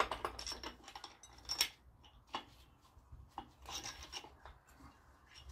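Cast main bearing cap being worked out of a Dodge 360 Magnum V8 block by hand: scattered metal scrapes and clicks as the tight-fitting cap is rocked free.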